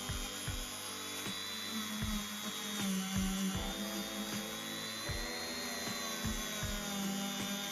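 Handheld rotary tool spinning a small wire brush wheel against a rusty metal hinge, a steady high whine that wavers a little in pitch as the wheel is pressed into the metal to scrub off rust. Background music with a steady beat plays underneath.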